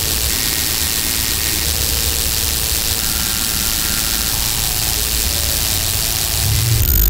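A steady, noisy drone with a deep rumble underneath and hiss on top, with a few faint thin tones drifting through it. Near the end it swells louder and a high, thin whistle-like tone sets in.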